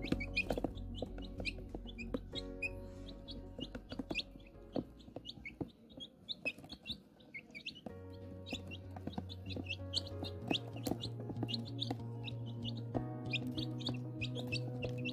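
Chicks peeping over and over in short, high chirps, with background music carrying a steady low bass line underneath; the music drops out for a couple of seconds midway while the peeping goes on.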